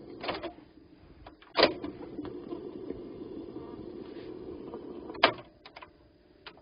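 Revox G36 reel-to-reel tape recorder's transport working through its controls. A clunk stops the mechanism, another clunk starts it, the motor and reels run steadily for about three and a half seconds, then a third clunk stops it, followed by a few light clicks.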